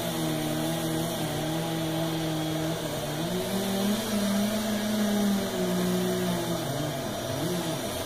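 Two-stroke chainsaw running at high revs as it cuts into the base of a large tree trunk. The pitch steps up about three seconds in, drops back a little after six seconds, then surges up and down near the end.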